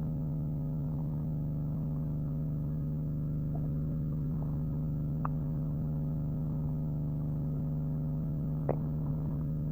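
A man's stomach growling: a steady low rumble, with two short rising squeaky gurgles about five seconds in and near the end.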